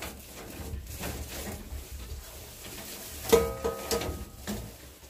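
A sharp knock about three seconds in, followed by a ringing tone that holds for about a second and stops, over a low rumble.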